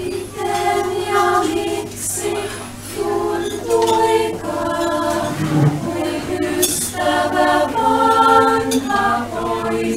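Small choir singing a cappella, holding chords in phrases with short breaks between them.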